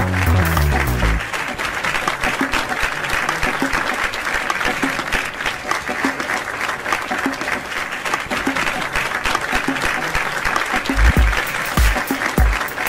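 Audience applauding steadily over music with a heavy bass beat. The beat drops out about a second in and comes back near the end.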